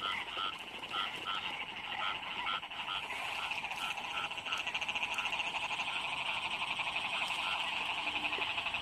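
Chorus of small field frogs calling after heavy rain. Short repeated croaks, about three a second at first, sound over a dense, fast-pulsing trill that grows steadier from about three seconds in.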